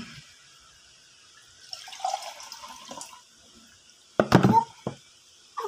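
Water poured from a cup into a bowl of pancake batter mix, splashing for about a second and a half, then a loud knock about four seconds in.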